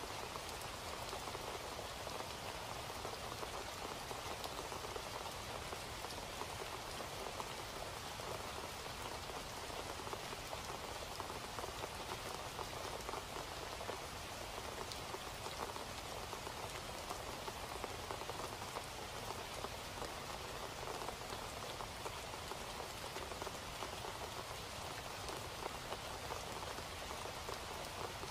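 Steady rain, an even hiss with faint ticks of single drops.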